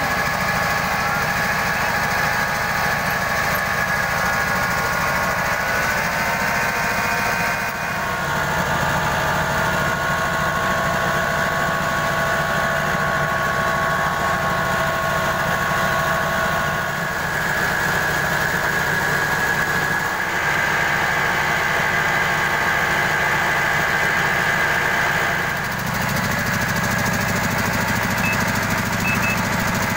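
Small diesel engine driving a rice milling machine (huller and polisher), running steadily with a low rumble and a steady whine from the mill. The sound changes abruptly a few times as one shot cuts to the next.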